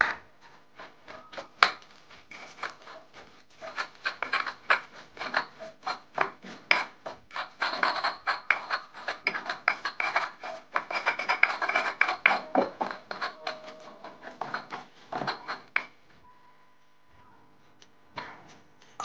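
Stone pestle (ulekan) grinding and scraping sambal in a volcanic-stone mortar (cobek), working tamarind into the chilli paste: rapid, repeated gritty scraping strokes with sharp stone-on-stone knocks, the loudest about a second and a half in. The grinding stops a few seconds before the end.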